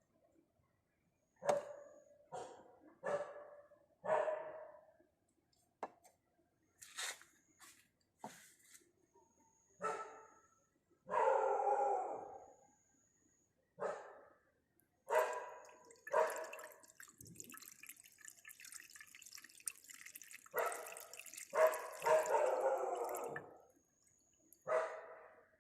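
A dog barking repeatedly, in short separate barks. In the middle there is a stretch of steady hiss lasting several seconds.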